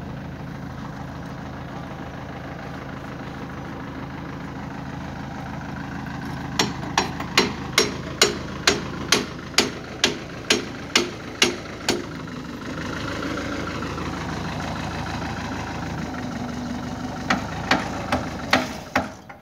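Engine of an earth-moving machine running steadily at idle. About a third of the way in, a run of a dozen or so sharp knocks comes at about two a second, and a few more come near the end.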